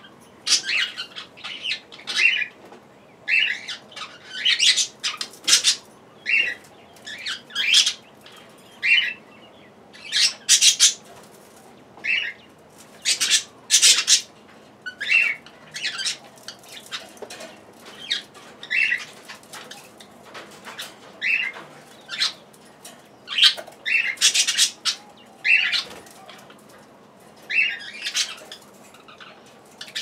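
Budgerigar giving short, sharp chirping calls over and over, one or two a second, in loose clusters.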